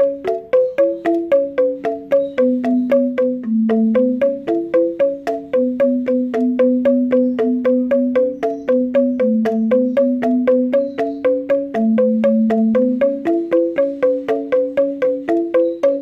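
Background music: quick, evenly spaced struck notes, about four a second, over a lower melody of held notes that steps up and down.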